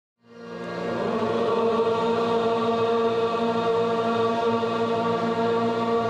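Devotional chant fading in over the first second, then one steady held chord that does not change pitch.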